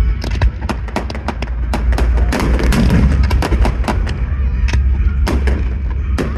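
Fireworks going off in quick succession: a dense run of sharp bangs and crackles, several a second, over a steady low rumble.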